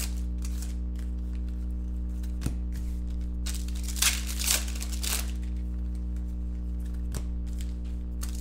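Foil trading-card pack wrappers crinkling and tearing as packs are opened by hand, in short bursts, the loudest about four to five seconds in, over a steady low hum.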